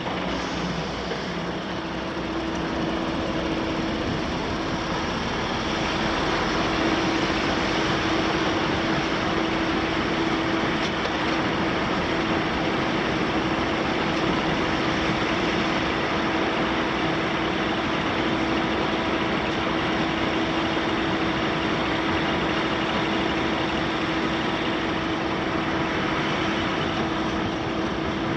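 Caterpillar 966M wheel loader's C9.3 ACERT diesel engine running steadily, with a constant whine over it. The sound grows louder over the first few seconds, then holds even.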